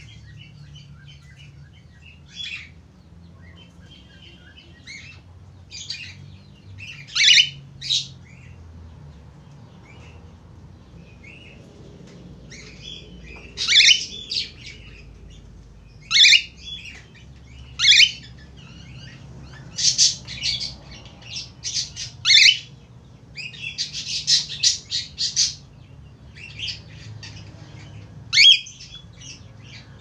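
Cockatiel calling: about eight loud, sharp, high-pitched calls a few seconds apart, with softer chirps between them and a quick run of chattering chirps about two thirds of the way through.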